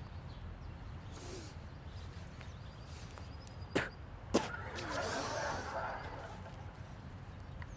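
Two sharp snaps about half a second apart, a little past halfway, then a short rustle, from dry twigs and leaves being picked up off the ground, over a steady low rumble.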